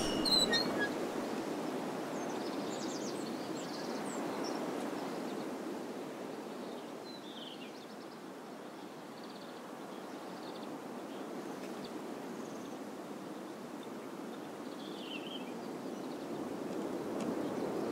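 Steady outdoor ambience, a low even rush like wind, that dips a little midway and swells again near the end, with a few faint high chirps scattered through it.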